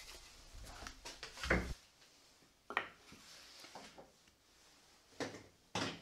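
Pieces of wood knocked and set down on a plywood table-saw sled: four sharp knocks, the heaviest about a second and a half in.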